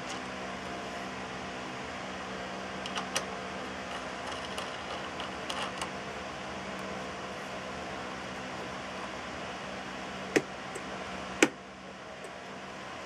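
Wood lathe motor running with a steady hum, with a few light clicks and then two sharp knocks near the end.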